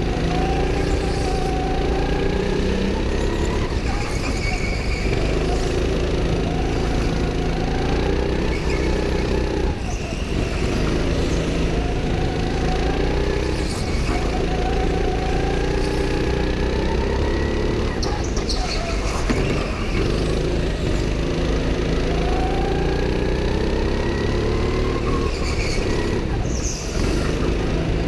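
Go-kart engine running hard at close range. Its pitch climbs as the kart accelerates out of each corner and falls back when the driver lifts off, over and over on each lap section.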